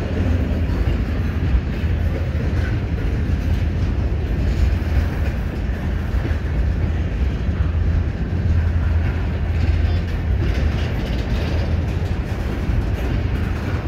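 Covered hopper cars of a freight train rolling past: steel wheels on the rails making a steady rumble.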